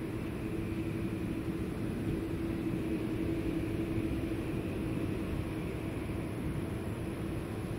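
Jet airliner engines running, heard at a distance as a steady rumble with a steady low hum.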